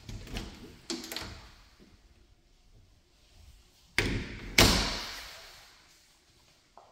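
A white interior panel door being handled: a few light clicks about a second in, then the door pushed shut with a sharp knock and, just after, a louder thud that dies away over about a second.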